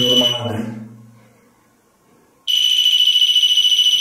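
A high-pitched electronic alarm tone from a piezo buzzer, steady with a fast flutter. It breaks off about half a second in and sounds again from about two and a half seconds in. At first a lower pitched hum lies under it and fades out over about a second and a half.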